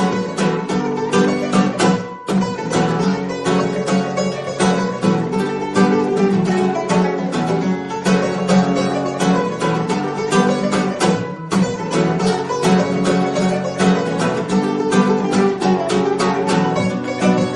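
Instrumental background music of quick, rapidly repeated plucked-string notes at a steady pace, with a brief dip about two seconds in.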